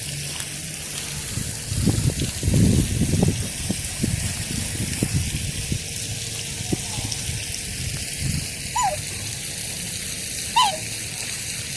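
Steady rush of running water, with a patch of low rumbling two to four seconds in and two short falling squeaks near the end.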